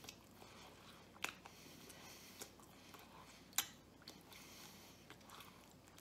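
A man chewing a mouthful of pizza with his mouth closed: faint, with scattered mouth clicks, a sharper one a little over a second in and the loudest about three and a half seconds in.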